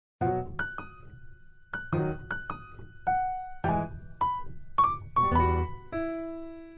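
A short piano bridge between programme segments: single notes and chords struck one after another, each ringing and fading, ending on a held chord that dies away.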